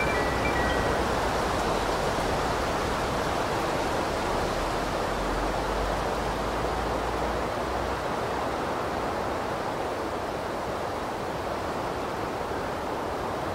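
A steady rushing noise that slowly gets a little quieter, with the last high chime tones ringing out in the first second.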